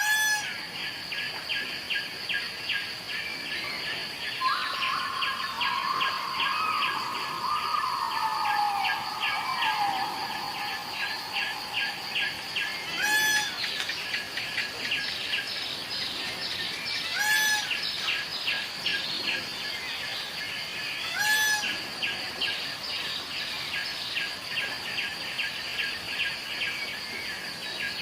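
A peacock gives short, sharp calls four times: once at the start, then three times about four seconds apart past the middle. A lower, slowly falling call lasting several seconds comes before them. Underneath runs a steady, rapidly pulsing chorus.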